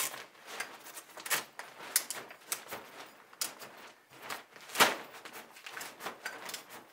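Rods of a CheetahStand RB-120P/RB-90P softbox clicking into place in the speed ring as they are pulled open one after another: irregular clicks and knocks, the loudest about five seconds in.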